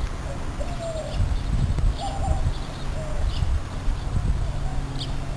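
Birds calling: short cooing notes that glide in pitch, with brief high chirps every half second or so, over a low steady rumble.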